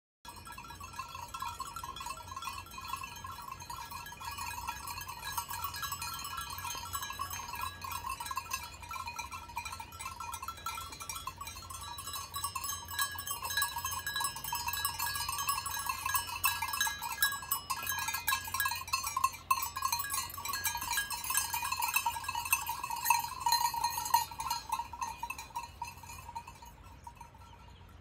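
Many livestock bells clanking and ringing irregularly, several bell tones sounding at once; the sound fades out near the end.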